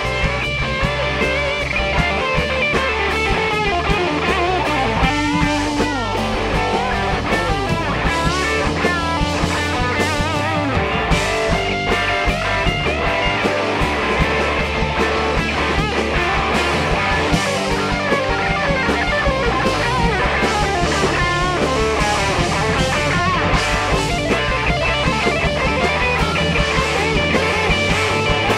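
Country-rock band playing an instrumental stretch with no vocals: two electric guitars over bass guitar and a drum kit, with bending lead-guitar lines.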